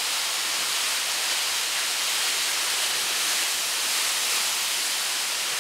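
Typhoon Haiyan's wind, driving rain and storm-surge water rushing past, making an even, unbroken rushing hiss at a steady level.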